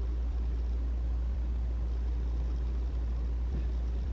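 A steady, low hum with no change over the few seconds.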